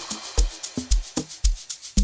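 Instrumental electronic dance music: a steady kick drum about twice a second, with shaker ticks and short pitched percussion hits that drop in pitch between the kicks.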